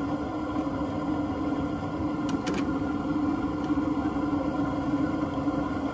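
Propane fish fryer running with a steady low hum from the burner under the hot oil, with hushpuppies bubbling in the baskets. A couple of light clicks of the tongs come near the middle.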